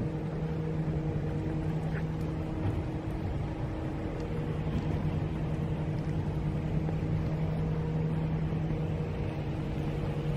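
Steady low machine hum, several constant tones over a light rumble, like an engine or other machinery running without change.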